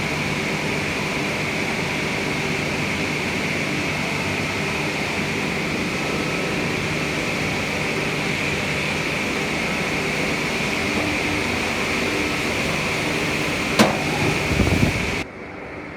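Steady noise of running industrial machinery: a constant low hum with a hissing whine on top. A sharp click comes near the end, then the noise drops off abruptly.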